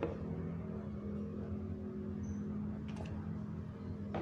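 Steady low electrical hum with a few light clicks of a clear plastic jelly mould being handled as it is lifted off a set pudding onto a plate.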